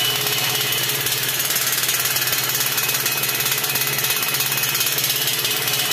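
Homemade scarecrow noise-maker: a small electric motor rattling rapidly and continuously against a metal tin lid, a loud, even mechanical clatter.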